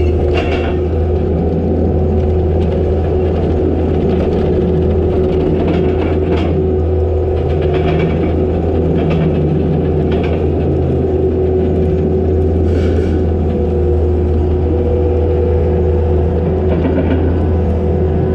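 Takeuchi TL250 compact track loader's diesel engine running steadily under the operator's seat, a continuous low drone with a steady higher hum. A few short rattles or knocks are heard over it as the machine travels on its tracks.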